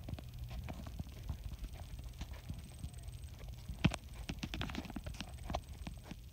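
Hikers' footsteps and trekking-pole taps on a sandy, leaf-littered trail, making irregular clicks and crunches, with one sharper click just under four seconds in.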